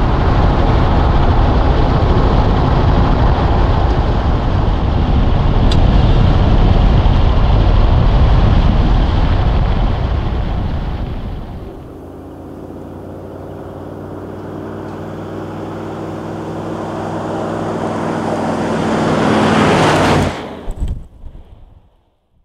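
Toyota LandCruiser 76 series V8 turbo-diesel driving on a gravel road, its engine and tyre noise heard close beside the front wheel. About halfway through it drops to a quieter engine note that grows steadily louder as the vehicle approaches, then cuts off suddenly near the end.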